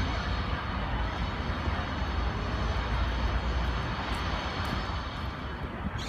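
Steady outdoor city background noise: a low rumble with an even hiss over it, with no distinct event standing out.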